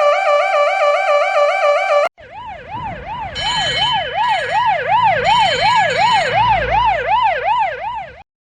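Emergency vehicle sirens. A fast-warbling siren cuts off about two seconds in. Then a siren sweeping up and down about twice a second starts, with broken blasts of a horn over it for about three seconds and a low engine rumble beneath, before everything stops abruptly near the end.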